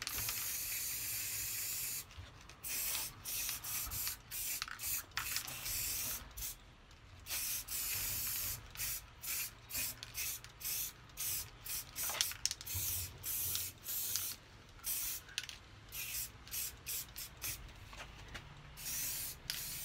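Aerosol spray paint can hissing in repeated bursts: a few long sprays of about two seconds and many short ones under a second, putting a first coat of paint on a hand plane's body.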